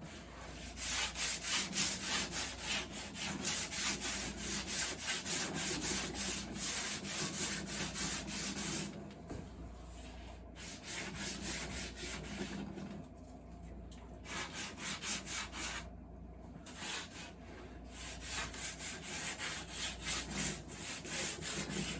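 A tool working pine boards in several bursts of rapid strokes, with short pauses between the bursts.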